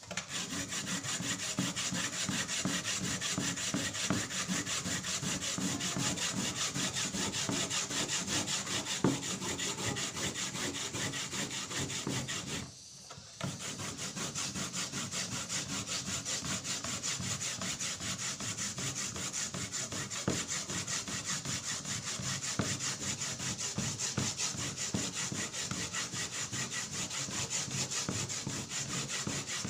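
Fresh coconut being grated by hand on a flat metal grater: rapid, continuous back-and-forth scraping strokes, with a brief pause about halfway through.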